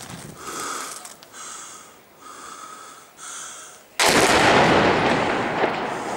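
A few faint short breathy sounds about a second apart, then a sudden loud blast about four seconds in that rumbles and dies away over the next two seconds: a shell exploding.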